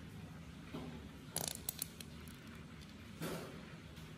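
Squeeze bottle of mayonnaise farting as air spurts out with the mayonnaise: a spluttering burst about a second and a half in, then a shorter one after three seconds.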